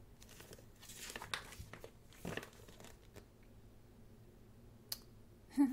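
Paper rustling as the pages of a thick photobook are turned, in two sweeps, with a light tap near the end.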